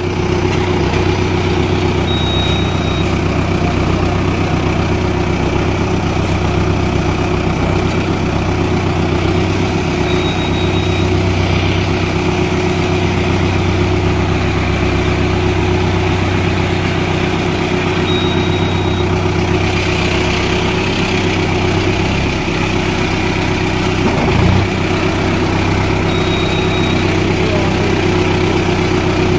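Small tractor's diesel engine running steadily at idle. A short high beep sounds about every eight seconds.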